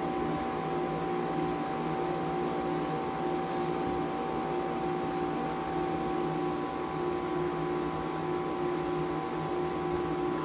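2017 Lasko Performance heat pump running: a steady mechanical hum with several held tones over a fan-like hiss. It is iced over and, by the owner's account, has a refrigerant leak, and it does not sound good at all.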